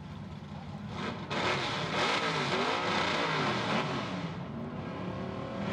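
Race trucks' 427 cubic-inch (7-litre) V8 engines running, then revving about a second in, pitch rising and falling for a few seconds before easing back toward the end.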